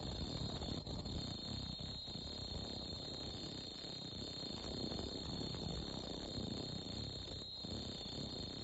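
Automatic tie-on face mask making machine running: a steady mechanical hum with rapid, fine clatter from its belts and rollers, and a constant high-pitched whine over it.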